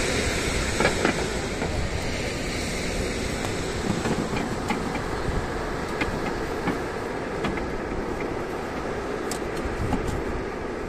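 Freight train of long dark wagons rolling past: a steady rumble of wheels on rails, with scattered short clicks as the wheels run over the track.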